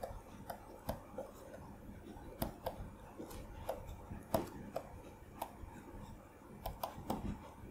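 Stylus writing on a tablet surface: light, irregular taps and clicks, a few each second, as the pen strikes and lifts while forming handwritten words.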